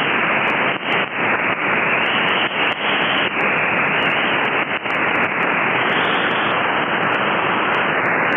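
Shortwave radio receiver tuned to 4865 kHz, giving a loud steady hiss with scattered sharp crackles of static and no readable station audio.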